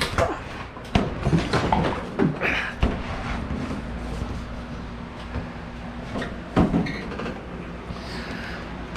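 Scattered knocks and clunks of handling the 1966 Ford Mustang coupe and opening its door, with a louder knock about two-thirds through, over a faint steady hum.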